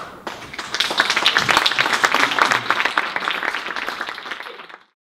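Audience applauding, swelling about a second in and cutting off suddenly near the end.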